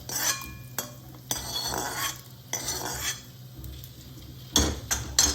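A metal spoon scraping and clinking against metal cookware as roasted chana and moong dal are scooped out of the pan into another vessel, with a couple of sharp knocks near the end.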